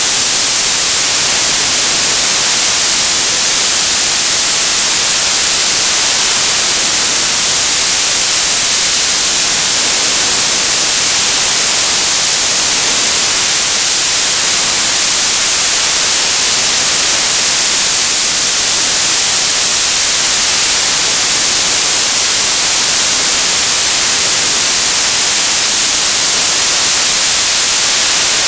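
Television static: a loud, steady hiss of white noise, strongest in the high frequencies, with no change.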